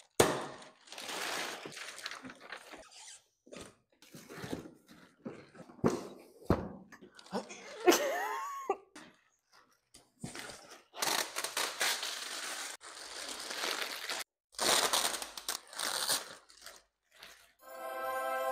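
Unpacking noises from packaging being handled: plastic wrap rustling, cardboard boxes shifted and straps pulled, in short spells broken by sudden cut-offs. A sustained music chord comes in near the end.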